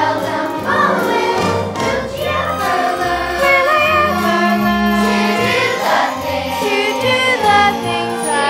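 Young cast singing in chorus over a musical accompaniment, holding long notes.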